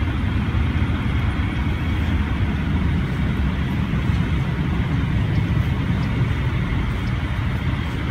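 Steady low rumble of motor-vehicle noise with no distinct events.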